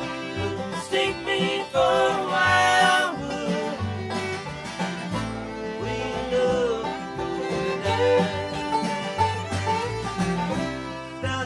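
A bluegrass string band playing live: fiddle, banjo and upright bass in an instrumental passage, with steady bass notes under the fiddle and banjo lines.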